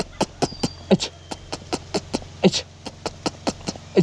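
A person calling a puppy with rapid mouth clicks and kissing sounds, several sharp clicks a second, with deeper tongue clucks about once a second.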